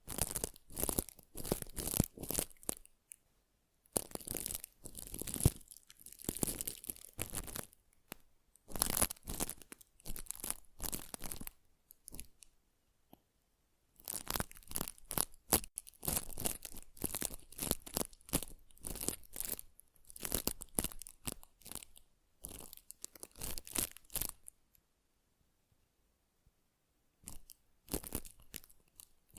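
Close-miked crisp scratching and crackling, like tearing or crunching, in spells of a few seconds separated by brief pauses: layered ASMR skincare trigger sounds.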